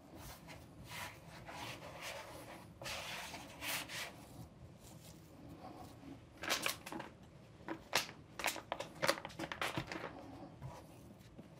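Hands kneading and pressing rye dough on a floured wooden cutting board: soft rubbing and scraping, with a run of light knocks and taps from about six to ten seconds in.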